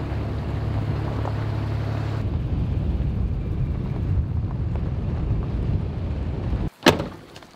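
Vehicle driving on a gravel road: a steady low rumble of engine and tyres with wind buffeting the microphone. It cuts off abruptly near the end, and a single sharp thump follows.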